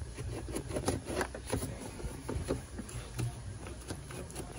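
Plastic engine air-intake hoses being handled and worked loose by hand: a string of irregular light clicks and knocks over a low steady hum.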